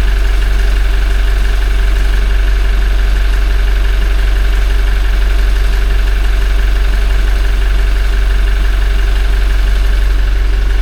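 Toyota 1GD-FTV 2.8-litre four-cylinder turbodiesel idling steadily while warming up. It carries a timing-chain crackle that is quiet enough but present.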